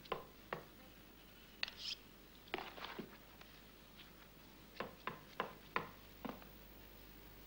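About a dozen sharp, short clacks at uneven spacing, some in quick clusters, with a brief swish about two seconds in.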